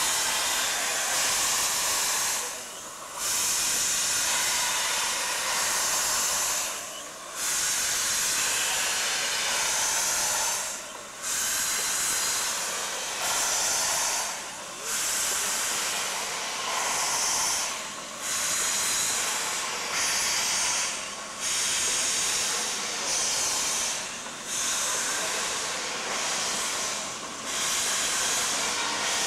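Metre-gauge steam locomotive moving off with its cylinder drain cocks open: a loud steam hiss broken by short gaps that come closer together as it gathers speed.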